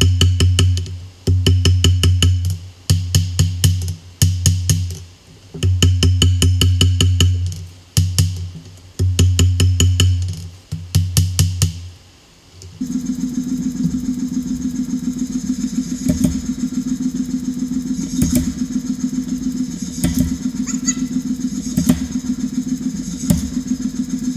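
Hand hammer striking hot steel on an anvil in quick runs of blows with short pauses. About halfway through, this changes to a power hammer's motor running steadily, with an occasional single metal clank.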